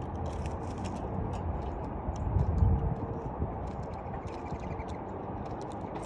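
Small birds giving many short, high chips and twitters over a steady low rumble, with a brief low swell about halfway through.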